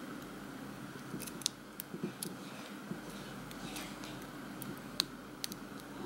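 Small, sharp metallic clicks at irregular intervals, the loudest about five seconds in, from a hook pick lifting the pins of a CoBolt 50mm padlock's pin-tumbler cylinder under light tension from a tension wrench. The pins are stiff and gritty, and the picker suspects security pins.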